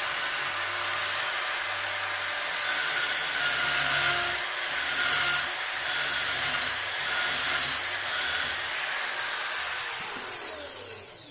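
Handheld power carving tool cutting into the dry dead wood of a loa bonsai trunk, a steady high whine with the cutting noise rising and falling. About ten seconds in it winds down, its whine falling in pitch as the bit spins to a stop.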